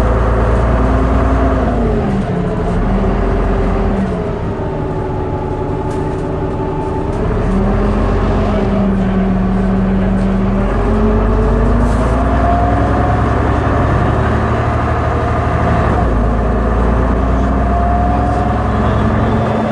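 MCW Metrobus double-decker's diesel engine and transmission heard from the upper deck while the bus is under way, running steadily with its pitch falling and rising several times as it changes speed and gear.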